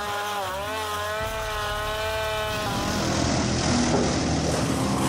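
Wood chipper's engine running under load, its pitch dipping and recovering. About two and a half seconds in it gives way to a rough, noisy sound.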